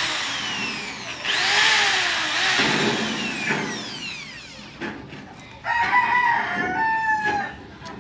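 Corded electric drill boring into a painted sheet-metal gutter corner, its pitch falling each time it winds down after a burst. A rooster crows once about six seconds in.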